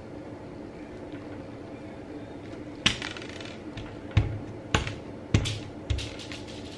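Several sharp clicks and taps of a lump of beaded slime being set down and pressed onto a hard tabletop, starting about three seconds in, after a few seconds of near-quiet room hum.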